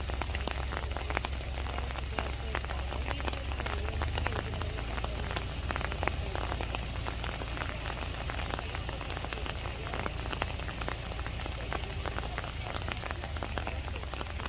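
Rain falling and pattering on a surface: many small irregular drop ticks over a steady hiss, with a constant low rumble underneath.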